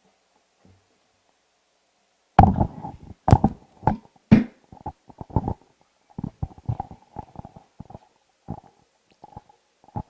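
Irregular thumps, knocks and rustling close to the microphone, as the hosts stand up. They start suddenly a couple of seconds in, are loudest at first, then trail off into smaller scattered bumps.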